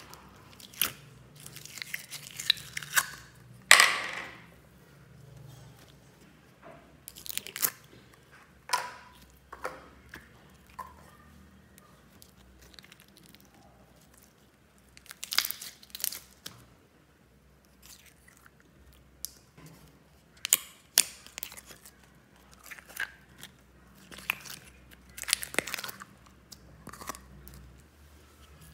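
Hands squishing, pulling and stretching slime, giving irregular bursts of sticky clicks, crackles and squelches with quiet gaps between; the loudest burst comes about four seconds in.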